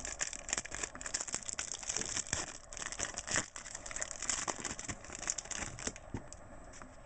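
Crinkling and rustling from a trading-card pack's wrapper and cards being handled: a dense run of small crackles that thins out about six seconds in.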